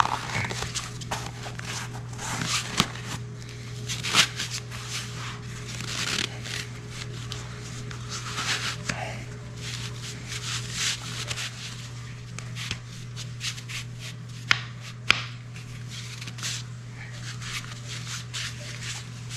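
Soft fabric cover being pulled and worked onto a spotting scope by hand: repeated rustling and rubbing of the cloth over the scope body, with a few sharp clicks and knocks.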